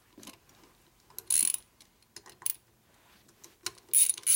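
Small hand ratchet clicking in two short runs, about a second in and again near the end, as oil pump mounting bolts are run down by hand.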